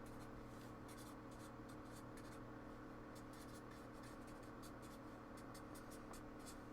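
Near silence: faint, irregular light ticks and scratches over a steady low hum.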